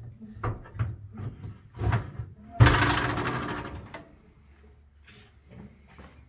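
A run of knocks and rattles, then a loud clatter about two and a half seconds in that rings out and fades over about a second.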